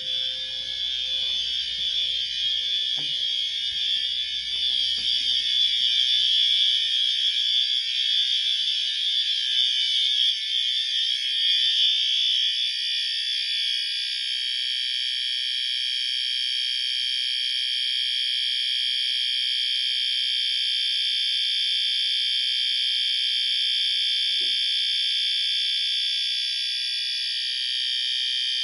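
Fire alarm signals sounding continuously. For about the first half the sound is harsh and buzzing; then it settles into a smoother, steady tone made of several pitches at once.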